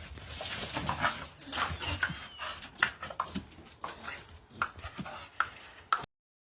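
A dog making short, scattered vocal sounds. The sound cuts off suddenly near the end.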